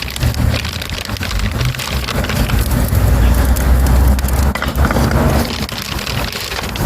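Dry twigs and wood burning in a small stove, crackling and popping irregularly, with a low rumble underneath.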